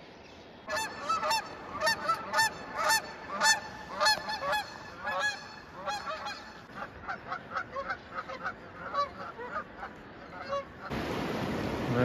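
A pair of geese honking in flight, a long run of repeated calls about two a second that grow fainter as the birds move off. Near the end, the steady rush of river water through a rapid takes over.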